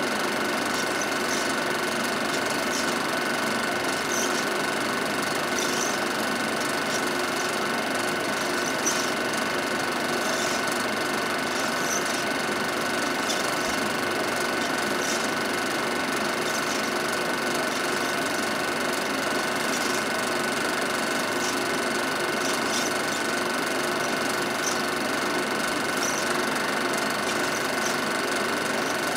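Film projector running steadily, its motor and film mechanism making an even whirring clatter with a constant hum.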